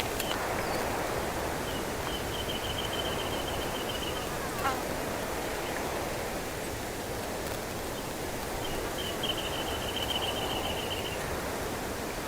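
Wind blowing steadily through a cypress bush, while a songbird sings a rapid trill of quick repeated notes twice, each lasting about two and a half seconds. A short falling note is heard a little over four seconds in.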